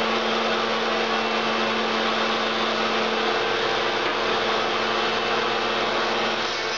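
Router in a router table running steadily at full speed, a loud, even motor whine.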